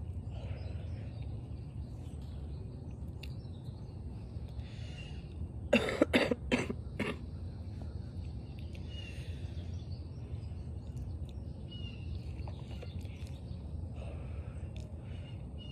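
A person coughing, a quick run of four or five coughs about six seconds in, while smoking a cigarette. A steady low background rumble runs underneath, with a few faint short chirps.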